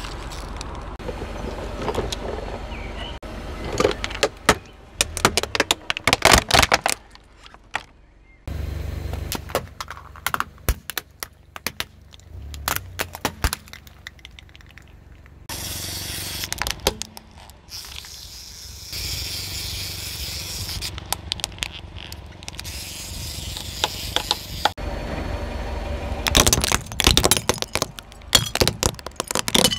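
Car tyre rolling over and crushing brittle plastic objects: bursts of crackles, snaps and scraping crunches over the low rumble of the car. The sound cuts abruptly several times from one crushing scene to the next.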